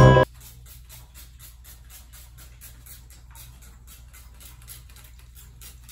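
Music cuts off just after the start, then faint, rapid snipping of scissors cutting hair, several small clicks a second over a low steady hum.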